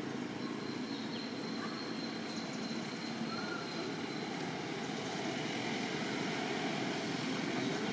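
Steady outdoor background noise: an even hiss and rumble with no clear single source, and a faint thin high tone in the first half.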